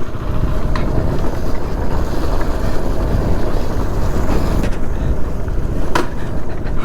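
Steady wind buffeting on the microphone and road noise from a moving motorcycle, with two short clicks, one about a second in and one near the end.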